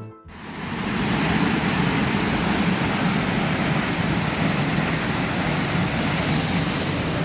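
Water jetting from a dam's outlet and spraying into the creek below: a dense, steady rushing that swells in over the first second and then holds.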